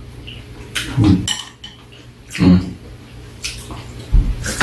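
Metal chopsticks and a spoon clicking and scraping against bowls and a metal tray while eating: a handful of separate clinks about a second apart, with a dull low thump near the end.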